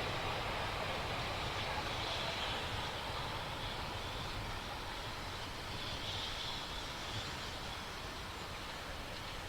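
Train running on the rails, its rumble slowly fading as it moves away.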